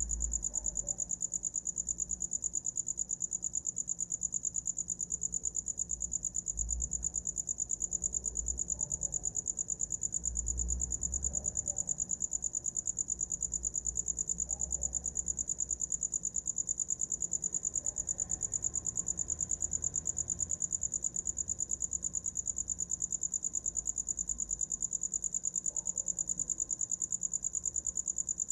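A single cricket chirping continuously in a fast, even, high-pitched trill, with a faint low rumble beneath it.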